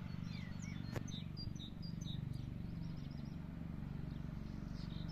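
Small songbirds chirping in short, scattered calls, busiest in the first half, over a steady low hum, with one sharp click about a second in.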